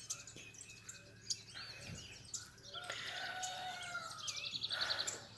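Several small birds singing and chirping in the open countryside, with a fast trill near the end.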